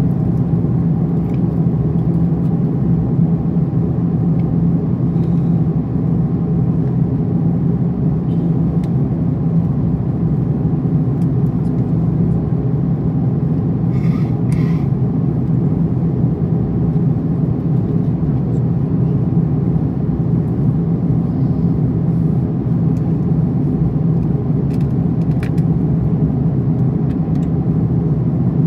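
Steady cabin noise of an Airbus A340-300 in flight: a deep, even rumble of airflow and its four CFM56 engines, heard from a seat over the wing. Two brief clicks sound about halfway through.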